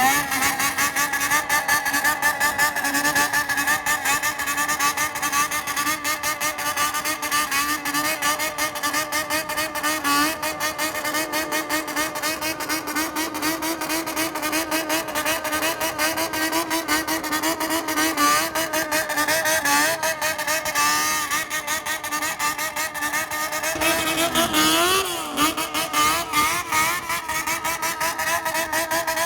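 Honda CBX400F's air-cooled inline-four held at high revs, the throttle worked in a quick rhythmic warble: a bōsōzoku-style high-rev 'call'. Near the end the revs dip briefly and climb again.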